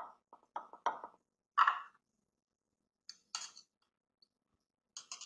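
A plastic spatula and cake rusk clinking and tapping against a glass baking dish in short clusters: a quick run of taps in the first second, the loudest clink about a second and a half in, and two more clusters near the middle and the end.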